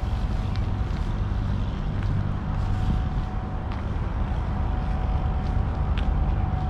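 Steady low rumble of engines from the parked trucks and traffic around the freight yard, with a faint steady hum over it. A few light footsteps click now and then.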